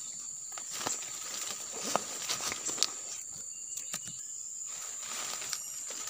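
Forest insects keeping up a steady high-pitched drone, with scattered rustles and clicks of the camera being handled and of footsteps in leaf litter.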